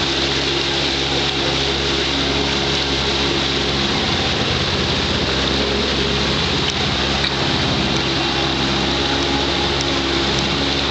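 Outboard motor of an inflatable rescue boat running steadily with the boat under way; its low engine note wavers and shifts for a few seconds in the middle.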